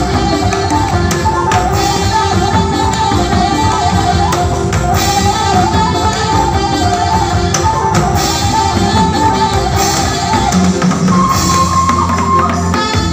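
Background music with a steady drum beat and a wavering melodic lead line.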